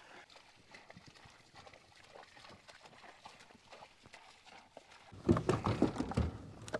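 Quiet for several seconds, then one loud, rough call from a bovine, a bull or cow bellowing, lasting about a second.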